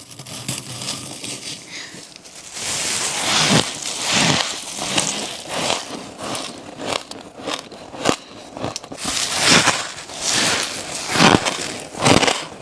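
Person biting into fluffy freezer frost, a series of crunchy bites at uneven spacing, roughly one a second.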